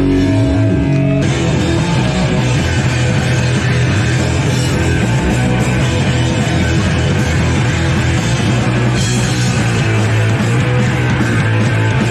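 Punk rock band playing live at full volume, with electric guitars and drums. A held note gives way to the whole band coming in about a second in.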